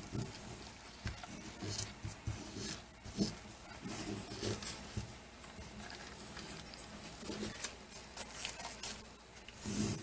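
Light, irregular taps, clicks and rustling of parts being handled, with a few sharper knocks scattered through.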